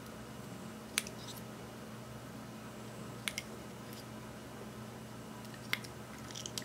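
A few sharp little clicks and taps of a plastic liquid-eyeshadow tube and its applicator wand being handled: the wand pulled from the tube, dabbed onto a plastic tray and slid back in. A faint steady hum lies underneath.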